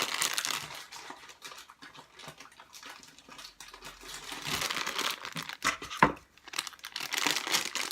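Packaging crinkling and tearing as a Funko blind box is opened by hand, with a few sharp clicks and snaps of packaging among the rustling.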